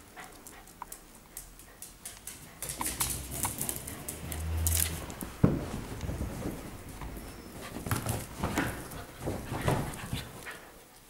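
Two small dogs play-fighting on a sofa: dog noises and scuffling on the cushions, with a sharp knock about five and a half seconds in and a cluster of dog sounds near the end.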